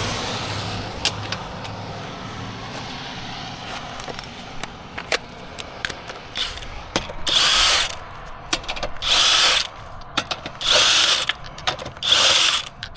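A socket tool working the lug nuts: from about seven seconds in, a regular series of short ratcheting bursts, each just under a second long and coming about every second and a half, with sharp clicks between them. A low hum fades out over the first few seconds.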